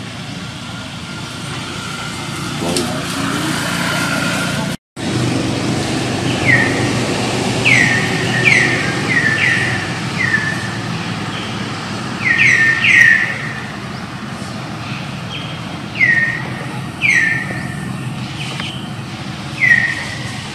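Outdoor ambience with a steady low background hum. The sound drops out for a moment about five seconds in. After that come short high chirps, each sliding down in pitch, repeated in irregular clusters of one to three.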